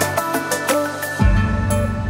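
Background music: a steady electronic track, with a bass line coming in a little over a second in.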